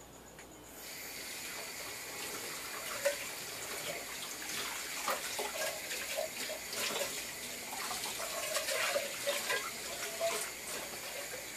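Kitchen tap running into a sink while dishes are washed and rinsed, with occasional short clinks of dishes. The water starts about a second in.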